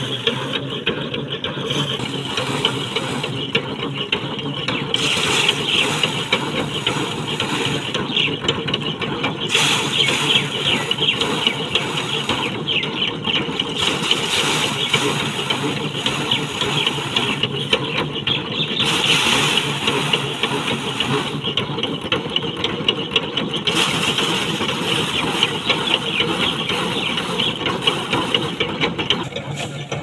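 Pedal-driven drum paddy thresher running: the spinning drum rattles and whirs continuously as rice bundles are held against it, with grain and straw spattering off the drum and its cover. The rattling swells and eases every few seconds as fresh bundles are pressed in.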